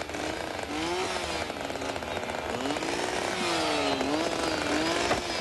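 Two-stroke chainsaws running and cutting timber, their engine pitch rising and falling repeatedly as the throttle is worked under load.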